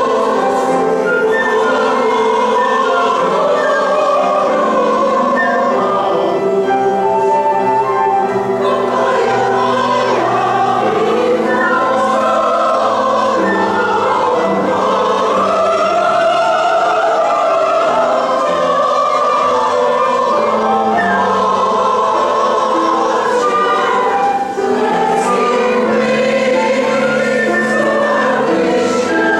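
Community chorus singing a choral song, many voices together holding long notes at a steady level.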